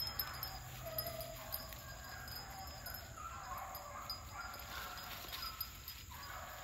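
Beagle hounds baying in the distance while running a rabbit, several faint voices overlapping in short calls, over a steady high insect drone.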